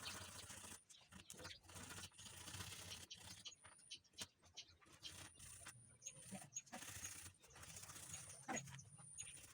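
Near silence, with faint scattered clicks and soft knocks.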